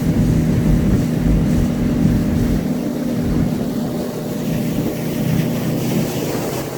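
Speedboat engine running steadily at speed, a droning hum with a low rumble that eases off about two and a half seconds in.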